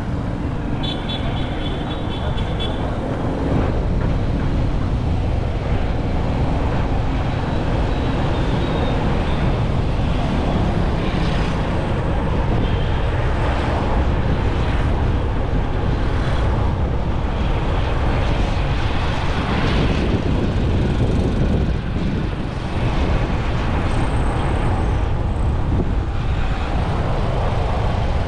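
Motorcycle riding along a road: its engine running under steady wind rush on the microphone, the noise heavy in the low end and continuous. A brief high-pitched repeated tone sounds about a second in.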